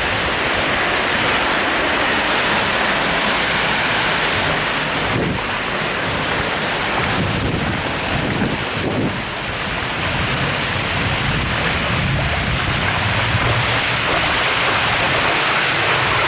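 Steady, loud rush of fast-flowing water, such as a jungle river or waterfall, cutting off suddenly at the end.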